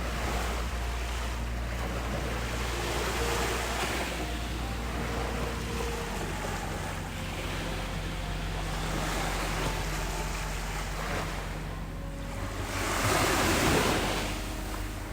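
Sea waves washing onto a beach, with wind buffeting the microphone; one wave surges louder near the end.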